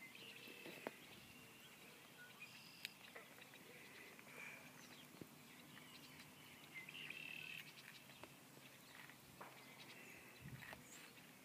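Near silence, with faint, scattered bird calls, short high whistles now and then.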